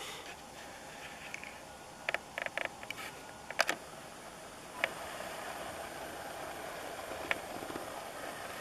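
Camera picking up its own handling: a run of sharp clicks from the controls about two to three and a half seconds in, then the lens zoom motor whirring steadily from about five seconds in as the lens zooms out.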